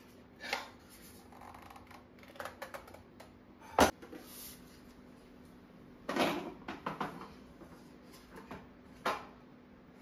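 Bamboo knife tray with several knives in it being handled, giving a string of short wooden knocks and knife clatters as it is lifted and set down on a window ledge. The sharpest, loudest knock comes a little before four seconds in, with a cluster of smaller knocks around six to seven seconds and one more near nine seconds.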